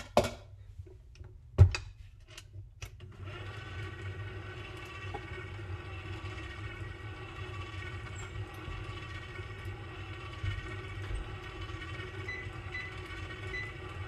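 A few knocks, the loudest a thump about one and a half seconds in, then an electric stand mixer starts about three seconds in and runs steadily with a motor hum and whine as its paddle beats flour into cream cheese rugelach dough.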